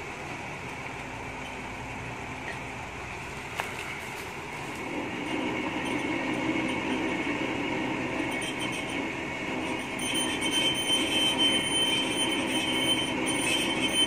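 Truck-mounted hydraulic crane working, its truck engine and hydraulics running steadily. About ten seconds in it grows louder and a high whine joins in.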